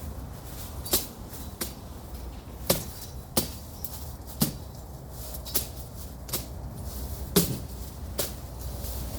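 Machete chopping through brush and small stems: about nine sharp, irregularly spaced strikes.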